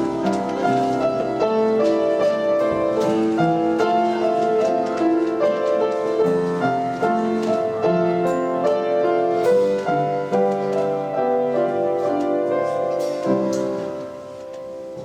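Piano playing a slow instrumental passage of chords and melody, fading down near the end.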